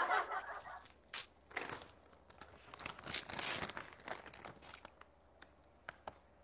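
Plastic snack packet crinkling and crackling as it is handled, in short irregular bursts.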